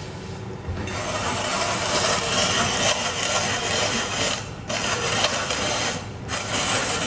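Hand-crank spiralizer cutting a carrot into spirals: a steady rasping of blade and crank that starts about a second in, with two brief pauses in the second half.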